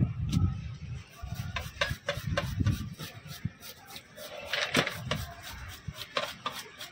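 Knife scraping the scales off a trevally on a wooden board, in quick, irregular rasping strokes.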